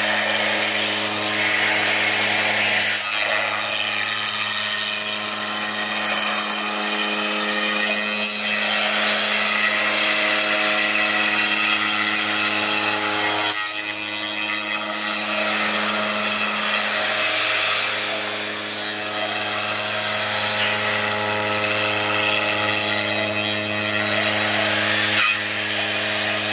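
5-axis CNC router's 20 kW Hiteco spindle driving a long end mill through a foam boat hull mould: a steady hum under a rough, hissing cut. The sound breaks off briefly three times.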